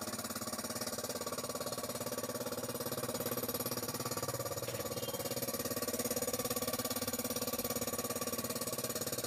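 A motor running steadily with a fast, even pulsing hum.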